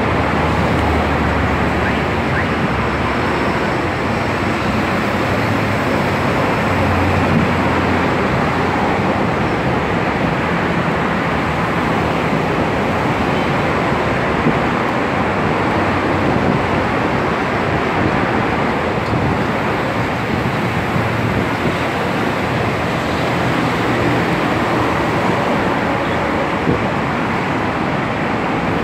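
Steady outdoor noise of city traffic with wind rushing on the microphone.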